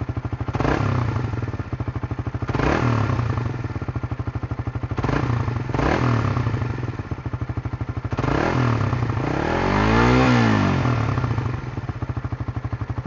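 Suzuki Raider Blade Edition motorcycle's single-cylinder engine idling through its stock exhaust, with a few short throttle blips and one longer rev about ten seconds in that rises in pitch and falls back to idle.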